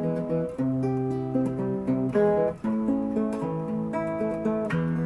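Acoustic guitar music: strummed chords that change every second or so.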